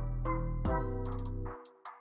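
Background electronic music with a deep bass line and a beat. It drops out about one and a half seconds in, leaving only a couple of short high ticks.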